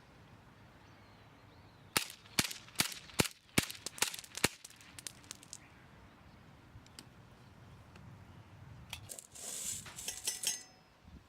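Marushin Combat Commander HW model gun firing seven cap-loaded cartridges in quick succession, about two and a half sharp shots a second. Near the end comes a short burst of metallic clatter.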